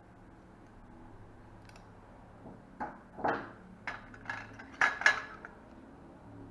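Stainless steel surgical instruments clinking in a steel kidney dish as they are picked through and one is lifted out. There are several sharp metallic clinks over about two and a half seconds, the loudest near the end.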